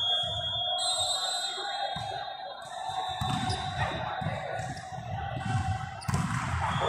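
Indoor volleyball rally in a large hall: repeated dull thuds of the ball being played and players landing on the court, echoing, with a sharper hit near the end. A steady high tone stops about a second in.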